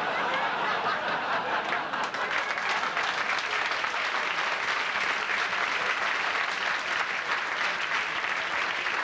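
Audience applauding after a punchline: dense, steady clapping from a full room that holds at an even level.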